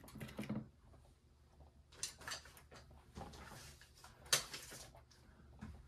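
Faint scattered light clicks and rustles of small metal balls and the toy's clear plastic spiral track being handled, with one sharper click about four seconds in.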